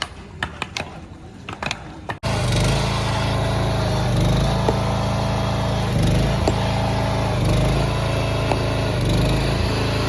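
Scattered knocks and clinks for about two seconds, then a sudden switch to a loud machine engine running steadily, with a regular dip and recovery about every second and a half and occasional sharp knocks.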